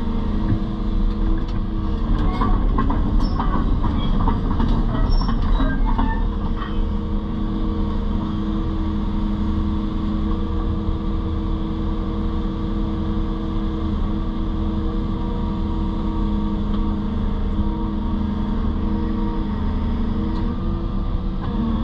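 Excavator's diesel engine running steadily, with scattered squeaks and metallic clanks over the first several seconds.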